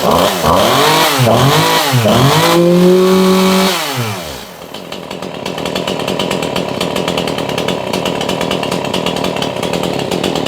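Stihl MS211C two-stroke chainsaw engine revved in about three quick throttle blips, then held high for about a second. It is released and falls straight back to a steady idle instead of hanging at high revs, a sign that the air leak from bad crank seals is cured.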